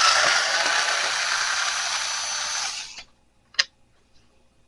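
Electric drill or power screwdriver running for about three seconds, its whine rising as it spins up, then stopping, followed by a single click.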